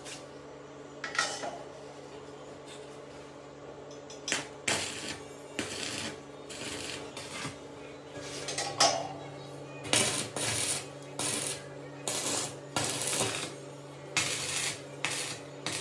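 Homemade sand sieve driven by a washing-machine motor running: the motor hums steadily while the sieve gives a dozen or so short, irregular bursts of metallic clinking and rattling.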